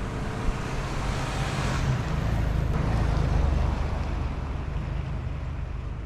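Car driving: a steady low engine and road rumble with a rush of road noise above it that swells a couple of seconds in and eases off toward the end.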